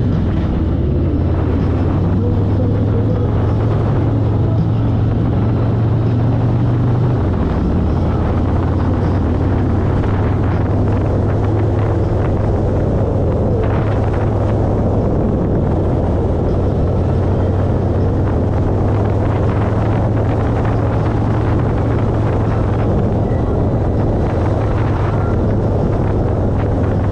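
Motorcycle engine running steadily while riding, a deep low drone whose pitch drops slightly about seven seconds in, mixed with wind noise on the camera microphone.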